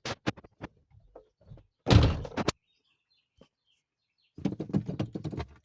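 A vehicle door shutting with a heavy thunk about two seconds in, among smaller clicks and knocks. A longer, rougher noise of about a second follows near the end.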